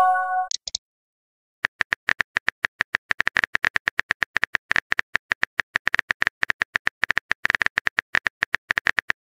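A short electronic chime of a few stacked notes as a chat message is sent. After a brief pause comes a rapid run of small keyboard tap clicks from a phone messaging app as a new message is typed.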